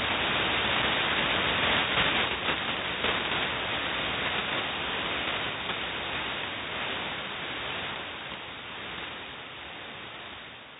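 Shortwave receiver static and hiss on the 4724 kHz channel, left after the voice transmission has ended, with a few faint crackles early on. It slowly fades down over the last few seconds.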